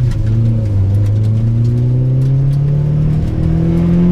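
Honda Prelude's H22A 2.2-litre four-cylinder VTEC engine accelerating under load, its tone climbing steadily through the revs. The pitch steps up about three seconds in, which fits VTEC engaging.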